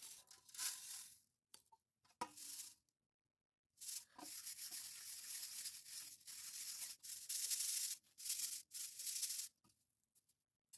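Dry mustard plants being rubbed and crushed by hand, a scratchy rustle in repeated bursts with short pauses, as the dried pods are worked to free the seed.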